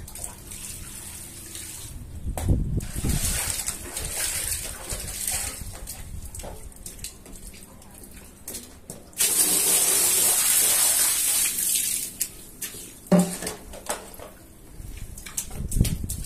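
Water splashing and running over a soaked rug; about nine seconds in a strong spray of water hisses on suddenly and eases off a few seconds later. A single knock sounds near thirteen seconds.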